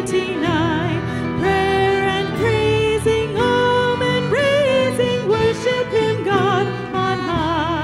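A woman sings a slow worship song with vibrato on held notes, backed by a small band of acoustic guitar, electric bass and piano.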